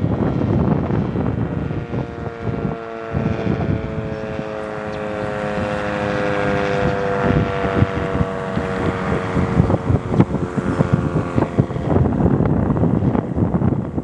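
Sentry 10V electromechanical warning siren sounding a steady chord of several tones, its pitch sagging slightly as it fades out about eleven seconds in. Under it runs heavy wind buffeting on the microphone and freeway traffic.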